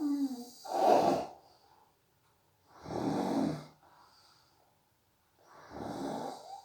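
A sleeping person snoring in a steady breathing rhythm, one snore about every two and a half to three seconds, the loudest about a second in.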